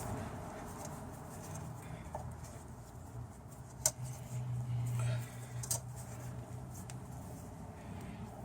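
Faint clicks and creaks of a 12 mm × 1.25 thread tap being turned by hand, cutting a new thread in an oiled, drilled-out bolt hole. A few sharp ticks stand out over a low steady hum, the loudest about four seconds in.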